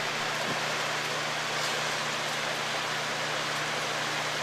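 Steady rush of moving air with a low hum underneath, as air drives a small spinning vertical-axis wind turbine.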